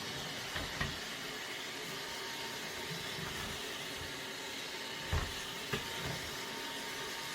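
Xiaomi X20 Pro robot vacuum running with a steady whirring hiss from its suction fan and brushes, and a few light knocks about a second in and again about five seconds in.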